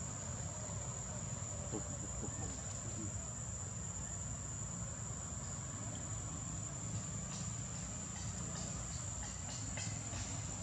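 Steady high-pitched insect chorus, one unbroken thin tone, over a low background rumble, with a few faint ticks in the second half.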